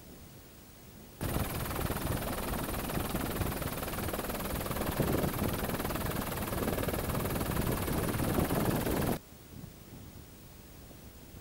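Helicopter running, heard from on board: a loud, dense noise with a rapid chop, cutting in about a second in and cutting off sharply near the end.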